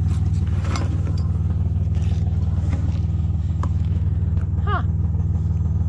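The 1990 Dodge Grand Caravan's 3.3-litre V6 idling steadily.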